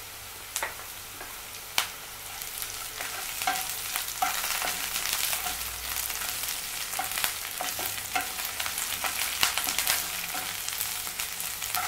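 Chopped onions and curry leaves sizzling in hot oil in a nonstick pan, with a wooden spatula scraping and knocking against the pan as they are stirred. The sizzle grows louder about four seconds in, with many small crackles throughout.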